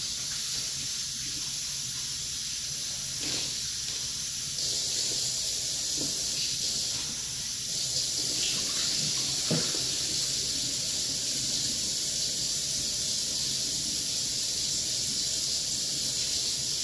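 Kitchen tap running steadily into a bowl as cut raw chicken pieces are rinsed under it, with a few faint knocks of the bowl and pieces along the way.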